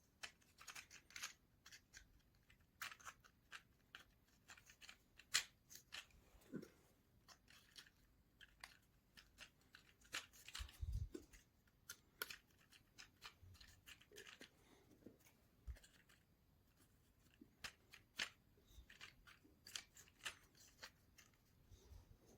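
Faint, irregular clicks, taps and scratches of small basswood model-kit parts being handled and pressed into place, with a couple of soft low knocks partway through.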